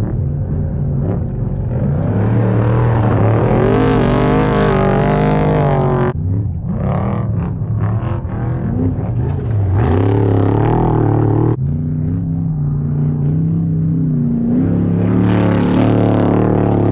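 Off-road race vehicle engines revving and passing by at speed, the pitch rising and falling with throttle, broken by two abrupt cuts between shots.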